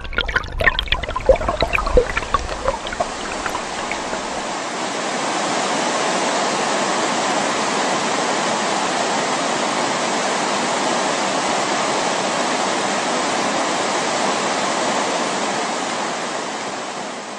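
Mountain stream water splashing and trickling over rocks, giving way about five seconds in to the steady rush of a waterfall, which starts to fade at the end.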